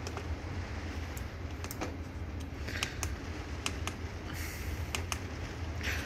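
Chinese diesel heater running with a steady low hum, and irregular sharp clicks as the buttons on its controller are pressed.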